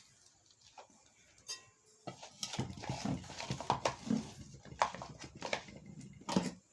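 Metal parts of a ceiling fan knocking, clicking and scraping as the top cover is fitted and threaded onto the fan body. It starts about two seconds in.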